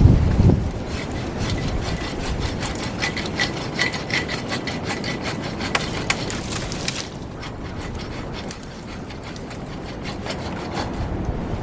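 Hand saw cutting through a tree-top branch in quick, repeated strokes, which slow and grow quieter after about seven seconds. Wind rumbles over the microphone at the start.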